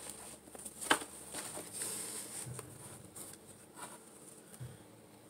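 Hands rummaging in a cardboard box: soft rustling and light taps and clicks as small makeup items are handled, with one sharp click about a second in.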